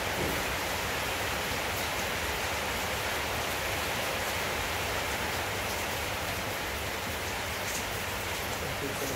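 Steady rushing noise like rain or running water, with a few faint clicks near the end.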